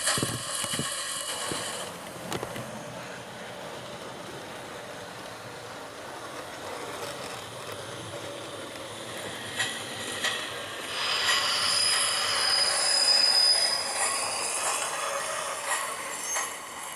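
Recorded train sounds from a Hornby HM7000 sound decoder, played through a model locomotive's small speaker: the train runs, then a high brake squeal starts about eleven seconds in and lasts a few seconds.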